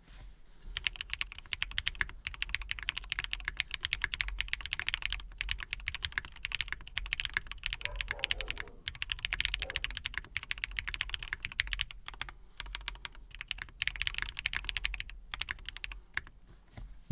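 Typing sound test on a freshly built Intro S100 mechanical keyboard: rapid, continuous key presses with a couple of brief lulls, stopping just before the end.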